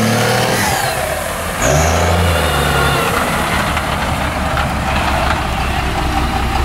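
Big mega mud truck engine revving under load through mud, then about a second and a half in a steady lower engine note as a second lifted truck on huge tyres drives slowly across grass.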